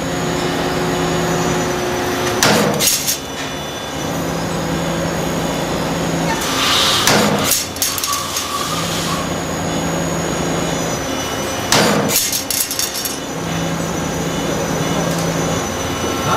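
CNC spring coiling machine running through a repeating cycle: a steady low hum during each stretch of work, broken by a sharp metallic clank about every four and a half seconds, four times.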